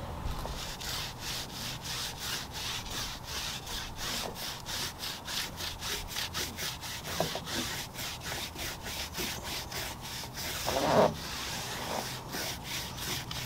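Soft-bristled in2detailing tyre dressing brush scrubbed back and forth over a car tyre's rubber sidewall, spreading tyre dressing: a rhythmic brushing rub of about three strokes a second, with one brief louder sound about eleven seconds in.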